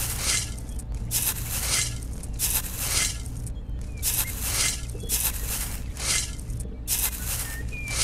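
A small toy metal shovel scraping and scooping wet, gritty sandy mud in short repeated strokes, about three every two seconds, over a steady low hum.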